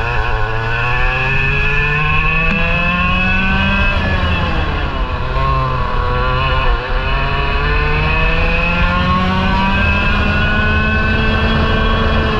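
Parilla SS20 two-stroke kart engine running hard, heard from on board the kart. Its revs climb for about four seconds, drop off the throttle around four to six seconds in, then climb steadily again.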